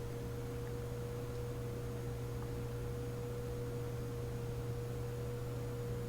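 Steady electrical hum with a constant mid-pitched tone over it and a faint hiss, unchanging throughout.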